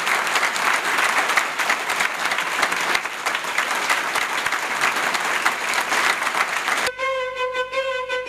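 A large audience applauding with dense, steady clapping. About seven seconds in it cuts off abruptly and instrumental music with a held melody begins.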